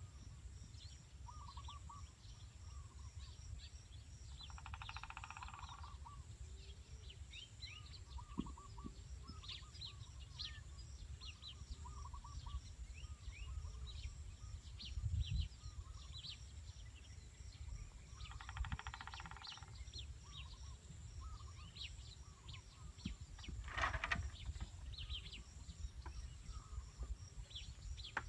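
Small birds chirping and calling throughout over a low steady rumble, with two short rapid trills, one about five seconds in and one about two-thirds of the way through. A soft thump comes about halfway and a sharper knock later on.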